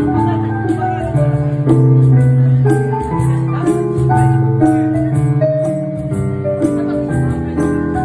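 Electronic keyboard playing a piano arrangement: held chords over a bass line, with a light, steady ticking rhythm on top.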